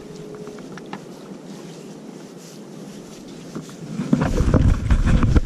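Small boat afloat on choppy water, with water sloshing against the hull and a few light knocks. From about four seconds in, wind buffets the microphone with a loud low rumble.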